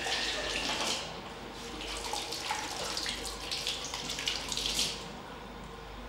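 Water running from a wall-mounted tap into a sink and splashing unevenly over cupped hands being washed. The splashing eases off about five seconds in.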